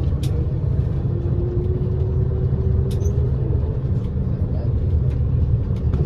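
Tour coach's engine and road noise heard from inside the passenger cabin while driving: a steady low rumble with a few light clicks.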